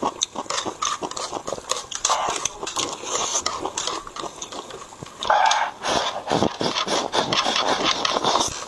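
A person eating close to a clip-on microphone: wet chewing and crackly crunching of kimchi and stir-fried noodles, with noisy slurps of noodles.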